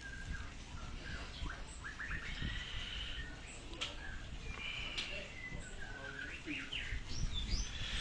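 Many caged songbirds chirping and whistling over one another, with short rising and falling calls throughout.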